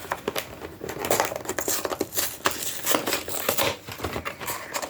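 Crinkling, rustling packaging handled and torn by hand as a boxed trading-card collection is opened, in a rapid irregular run of small crackles.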